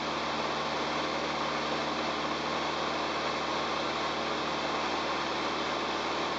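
Jodel DR1050 light aircraft in flight, heard from inside the cockpit: the single piston engine and propeller run with a steady, unchanging drone.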